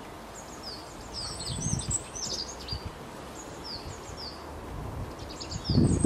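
Small songbirds chirping: short, high, downward-slurred notes in scattered bursts. Two low rumbles come through, one about two seconds in and a louder one near the end.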